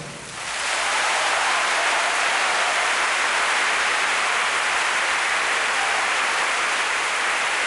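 Large audience applauding, swelling over the first half-second and then holding steady.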